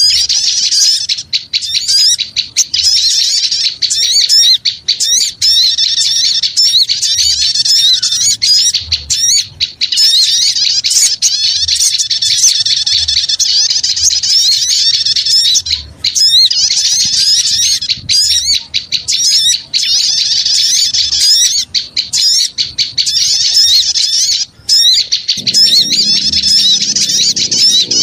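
A dense, noisy chorus of many small birds chirping and twittering rapidly without pause: a bird-lure call of agitated small birds.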